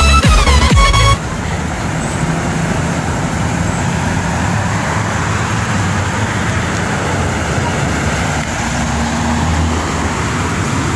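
Background music that cuts off about a second in, followed by steady road traffic noise with a low rumble.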